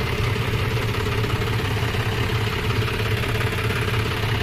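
Tractor diesel engine idling steadily with a constant low hum.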